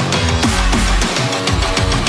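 Background music with a fast, steady beat and heavy bass.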